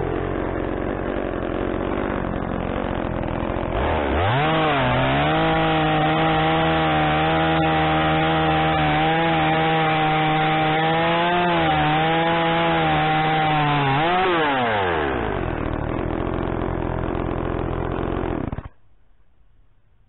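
Blue Max gas chainsaw running steady, revving up about 4 seconds in and held at high revs for about ten seconds as it crosscuts the end off a rough-sawn timber column. It drops back to idle and the engine is shut off near the end.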